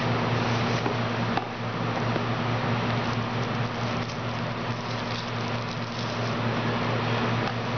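Steady hum and hiss of background noise, with a few faint taps and scrapes from a cardboard phone box being slid open and handled.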